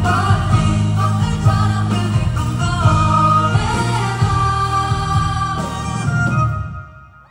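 Live band with a lead singer playing the closing bars of a pop-rock song, heard from the audience; the music fades and stops about six and a half seconds in.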